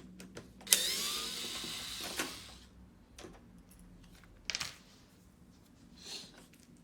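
A small handheld power tool, such as a cordless screwdriver, starts suddenly and runs for about two seconds, shifting in pitch, then stops. A few separate clicks and knocks follow.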